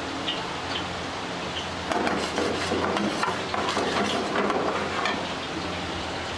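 A metal ladle stirring chole (chickpea curry) in a metal pan, scraping and clinking against the pan, from about two seconds in to about five seconds in. A steady low hum runs underneath.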